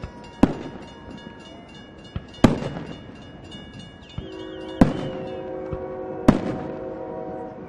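Aerial firework shells bursting in the sky: four loud, sharp booms roughly every two seconds, each trailing off in echo, with fainter pops between them.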